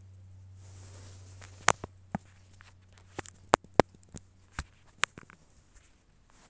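Sharp, irregular clicks and taps, about a dozen between roughly a second and a half and five seconds in, typical of a phone camera and small objects being handled. A low steady hum is heard in the first second or so.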